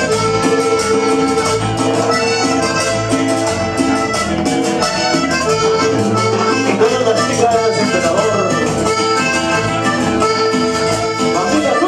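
Live cumbia band playing, a button accordion carrying the melody over congas, bass guitar and the steady scrape of a metal güira.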